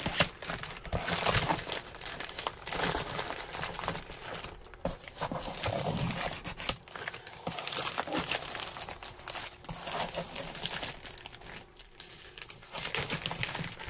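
Black plastic sheeting wrapped around a cardboard box crinkling and rustling as it is cut open and pulled away by hand, the noise coming and going unevenly.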